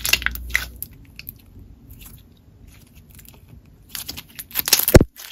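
Glossy, very stretchy slime being pressed and pulled by hand: sticky clicks and crackles, fainter in the middle, then a louder run of crackles with a short pop-like burst near the end.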